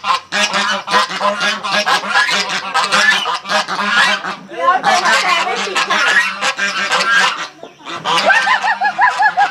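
Domestic white geese honking loudly and repeatedly, harsh calls overlapping one another, with a brief lull about two seconds before the end before the honking starts again.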